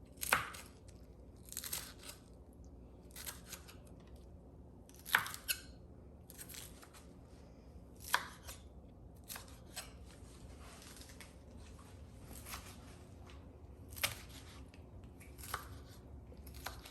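A kitchen knife chopping through fresh lettuce in crisp, irregular cuts, one every second or two.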